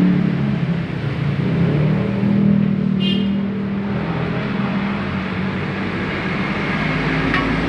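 A motorbike engine running, its pitch drifting up and down, with a brief high-pitched squeak about three seconds in.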